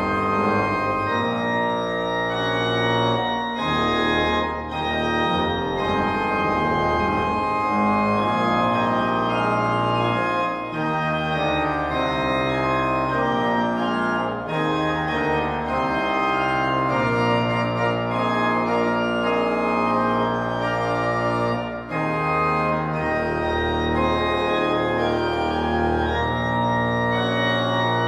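Church organ playing slow music in held chords over a moving bass line, with a brief break between phrases about 22 seconds in.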